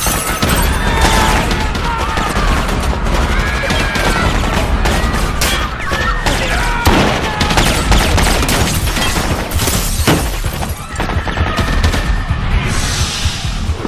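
Action-film soundtrack: rapid gunfire and loud impacts over an orchestral score.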